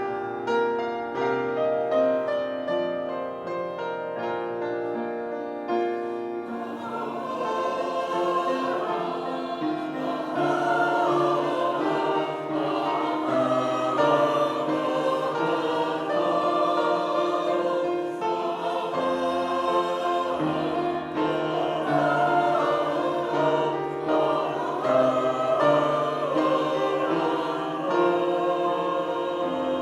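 A choir singing with piano accompaniment. The voices grow fuller about seven seconds in.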